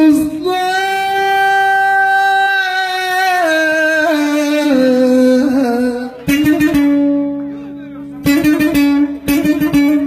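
A man singing one long held note of a bozlak in free rhythm, sliding slowly down in pitch in steps. From about six seconds in a bağlama (long-necked saz) comes in with plucked strokes, and from about eight seconds in it plays quick, dense strumming.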